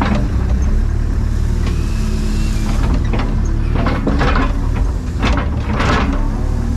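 Takeuchi TB285 compact excavator's diesel engine running steadily at idle, with several short rasping noises about three to six seconds in as the machine works.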